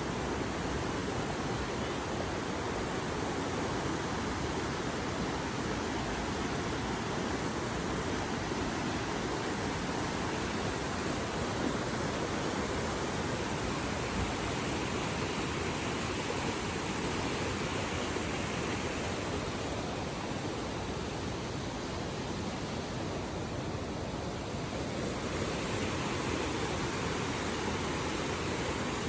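Fast-flowing water rushing steadily, as of a mountain river or waterfall, with no break or change.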